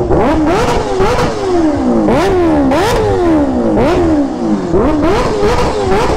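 Kawasaki Ninja H2R's supercharged inline-four revved in a quick series of about ten throttle blips, each a sharp rise in pitch and a slower fall back, with sharp cracks at several of the blips.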